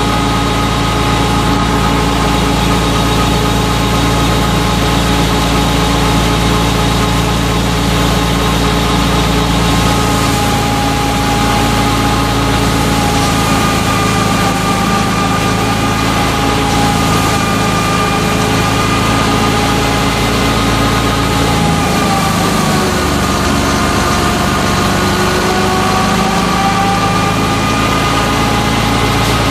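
Belt-driven wheat thresher running at working speed with steady whining tones, driven by a FIAT 640 tractor's diesel engine. The pitch dips briefly about three-quarters of the way through and then picks back up.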